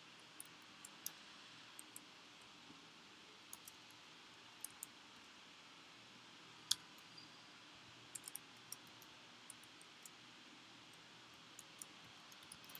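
Scattered, irregular keystrokes on a computer keyboard, typed in short runs, over a faint steady hiss; one keystroke about halfway through is louder than the rest.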